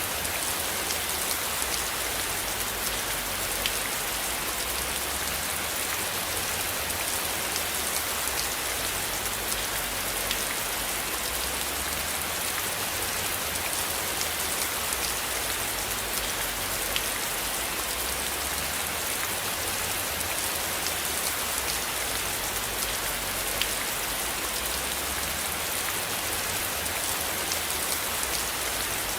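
Steady, gentle rain falling: an even hiss thick with small drop ticks, and no break or swell.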